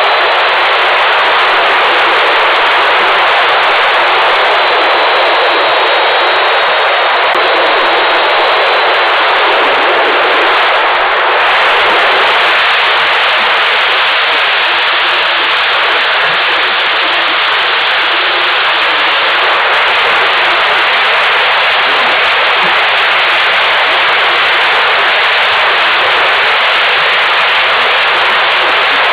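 Loud, steady rushing of air over a small camera mounted on the nose of a radio-controlled Ellipse 2V slope-soaring glider in flight. It is wind noise from the flight, not a motor.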